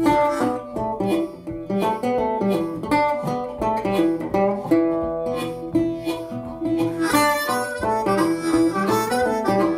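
Acoustic instrumental background music: quick plucked-string notes, guitar or banjo, over held harmonica tones.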